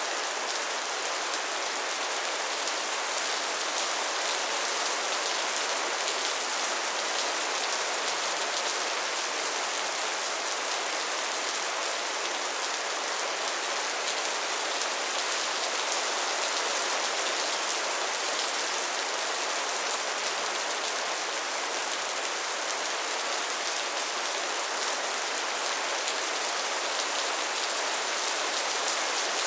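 Steady soft rain falling, an even hiss of many small drops with no thunder or gusts.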